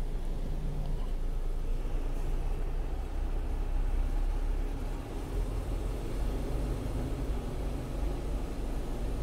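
Heavy truck's diesel engine running steadily at low speed in slow traffic, a low rumble heard inside the cab.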